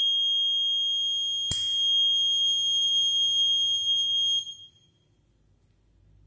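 Piezo buzzer on the fire-detection board sounding one continuous high-pitched tone for about four and a half seconds and then cutting off: the alarm for a flame picked up by the flame sensor. A sharp click about a second and a half in.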